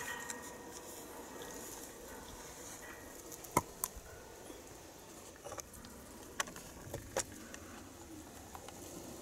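Quiet outdoor background with faint bird calls, broken by a few short sharp clicks, the loudest about three and a half seconds in.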